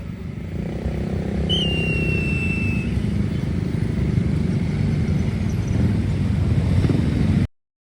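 Road traffic, mostly motor vehicles, rumbling and growing louder, with a brief high squeal about a second and a half in. The sound cuts off abruptly near the end.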